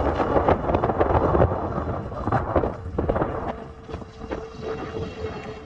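Wind buffeting the microphone of a phone carried on a moving e-bike, over road rumble, with scattered clicks and a faint steady hum beneath. The wind is strongest at first and eases a little past halfway.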